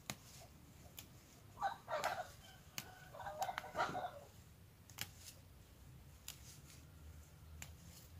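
Young mint stems snapping as they are picked by hand, a series of sharp clicks about a second apart. Short animal calls are louder around two seconds in and again between three and four seconds in.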